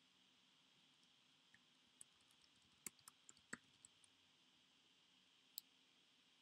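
Near silence broken by faint clicks of a computer keyboard and mouse: a quick cluster of presses about two to four seconds in, then a single click near the end.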